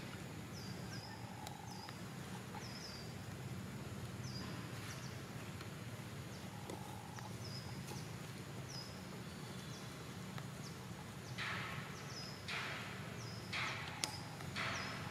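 Outdoor ambience of a bird repeating a short, high chirp every second or so over a low steady hum. Near the end come a few short, louder scratchy bursts and one sharp click.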